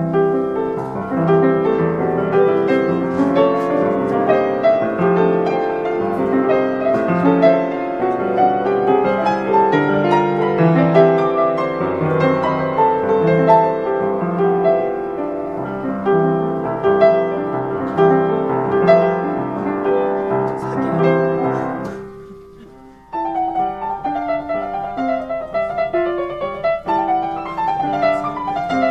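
An 1872 Rittmüller upright piano being played, a continuous flow of notes and chords. About 22 seconds in the playing dies away, then starts again abruptly a second later.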